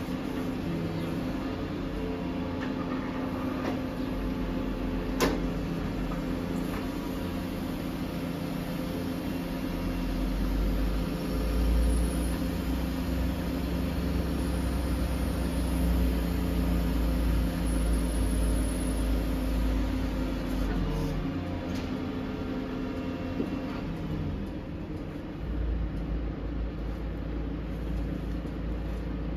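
Volvo FE 320 truck's diesel engine running steadily while it powers the HIAB loader crane's hydraulics as the crane's grab swings back over the truck. A single sharp clank comes about five seconds in, and a deeper low rumble swells between about ten and twenty seconds in.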